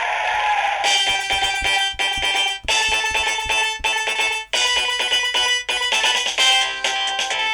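Built-in polyphonic melody of a Samsung SGH-E330N mobile phone: a sustained swelling chord for about the first second, then a rhythmic synthesized tune of short repeated notes.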